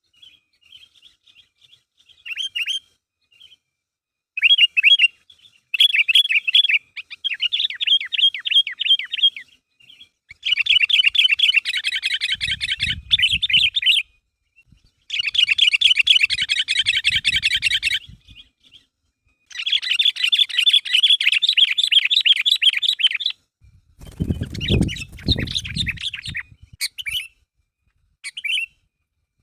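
Sooty-headed bulbul (kutilang) singing loudly in rapid chattering bursts of a few seconds each, a bird in full song. A few low, dull thumps sound beneath the song, the loudest about three-quarters of the way through.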